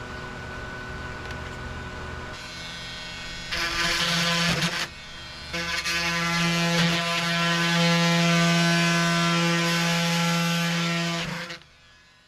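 An electric power tool's motor running steadily, starting a couple of seconds in, easing off briefly near the middle, and stopping shortly before the end.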